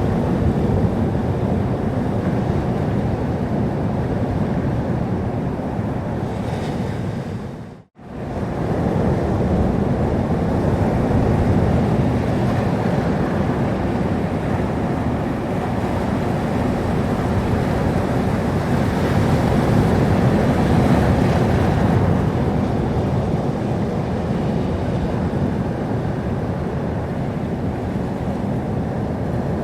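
Sea surf: waves washing in as a steady, continuous rush. Near the eighth second the sound fades out to silence for a moment, then fades back up.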